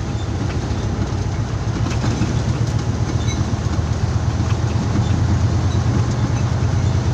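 Truck engine running steadily under way with road noise, heard from inside the cab as a steady low drone.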